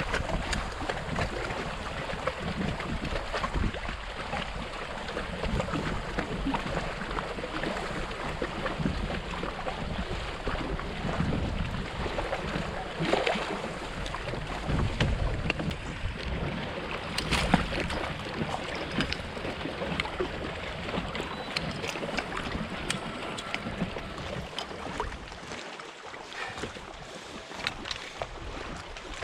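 Wind buffeting the microphone in gusts, over water lapping against a fishing kayak, with scattered faint knocks.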